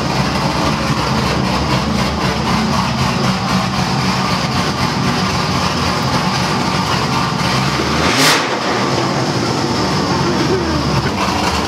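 Cammed, supercharged LSA V8 of a Pontiac GTO running through straight pipes with no mufflers: a loud, steady idle, with one quick rev about eight seconds in.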